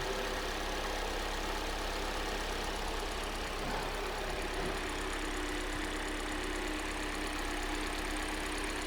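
Kia Sportage 3's freshly rebuilt G4NA 2.0-litre four-cylinder engine idling steadily soon after its first start, its hydraulic lifters already filled with oil.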